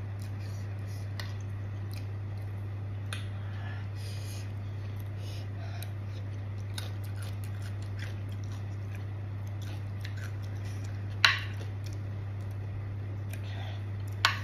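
A person eating from a plate with a metal spoon: faint chewing and small mouth clicks, and the spoon striking the plate sharply twice, about three-quarters of the way through and again at the very end. A steady low hum runs underneath.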